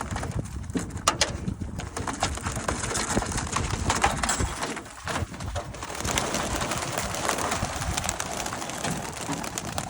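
A flock of about twenty homing pigeons released from a cage, their wings flapping and clapping in a dense flutter as they take off together.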